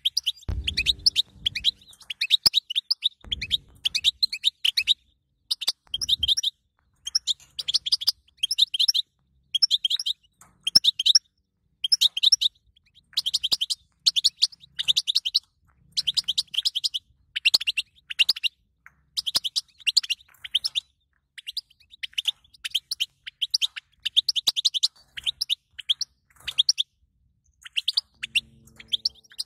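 European goldfinch twittering: short bursts of rapid, high chirps, repeated every second or so with brief pauses between them.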